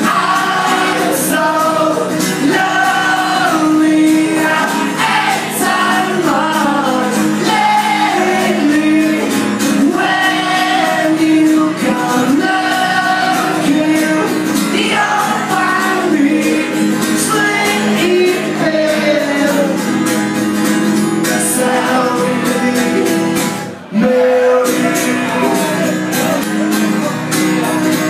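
Live male vocal sung over his own strummed acoustic guitar. About four seconds before the end, the music breaks off for a moment, then comes back in.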